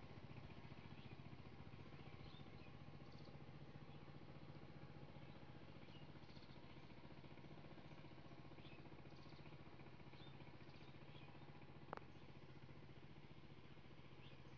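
Near silence: a faint steady low hum with faint short high chirps now and then, and a single sharp click about twelve seconds in.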